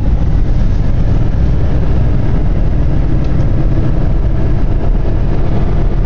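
Steady low rumble of a car at highway speed, heard from inside the cabin: engine and road noise with no break or change.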